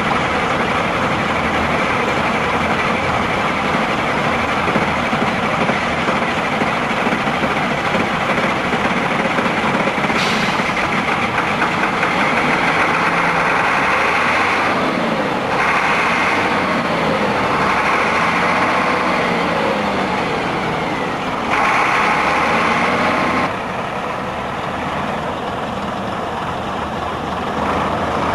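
Leyland National bus's Leyland 510 diesel engine running, revved several times in the middle so its pitch rises and falls, then running at a lower, steadier level near the end.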